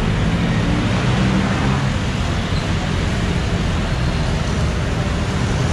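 Steady city street traffic: a continuous mix of vehicle engines and road noise with a low engine hum.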